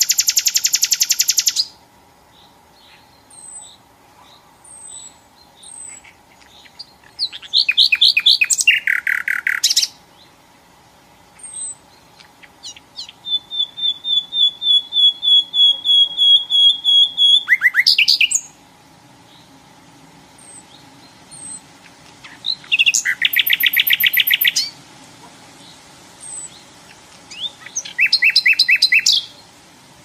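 Common nightingale singing in separate phrases: loud, rapid rattling trills broken by pauses filled with soft, thin high notes. About halfway through comes a long run of repeated piping notes that grows steadily louder.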